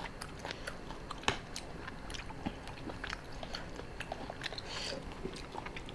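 Close-miked chewing of spicy seafood papaya salad, with many small wet mouth clicks and ticks at an uneven pace.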